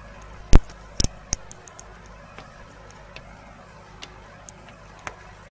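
A cat's paw tapping on window glass: a few sharp taps within the first second and a half, the first the loudest, then a handful of fainter ticks over a low steady hum.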